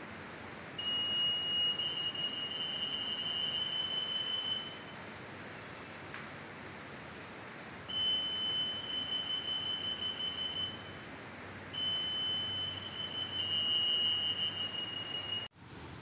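EAS anti-theft gate (CA 301 L RF, 8.2 MHz) sounding its alarm, a steady high-pitched electronic tone, three times for about three to four seconds each. The alarm means the gate has detected a security tag carried through its antennas.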